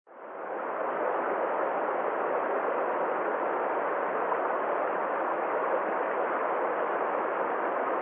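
Forest stream rushing over a low cascade of rocks: a steady, even rush of water that fades in over the first second.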